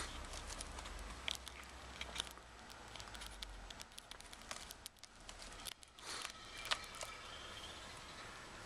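A kitten's claws catching and scratching on a sisal-rope scratching post: irregular light clicks and scratches as it grips and clambers on the rope.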